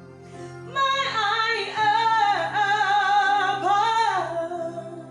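A woman singing a gospel worship song, holding a single word about a second in and drawing it out with a melismatic run and vibrato for about three seconds, over a steady held chord of accompaniment.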